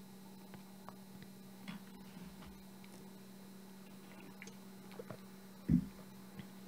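Faint scattered computer mouse clicks over a steady low electrical hum, with one soft low thump near the end.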